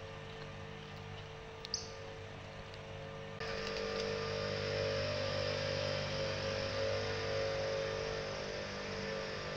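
A steady electronic hum with background hiss from a trail camera's microphone, with one short, high chirp about two seconds in. Partway through the hum and hiss jump suddenly louder and stay steady.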